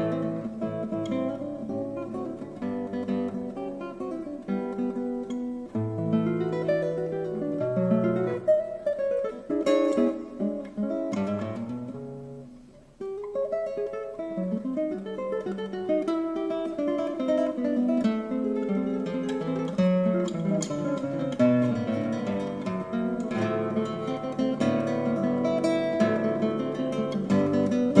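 Solo classical guitar built by Lefteris Kalantonis, played as a run of quick plucked notes and chords. About twelve seconds in the music thins and dies away, then starts again abruptly a second later.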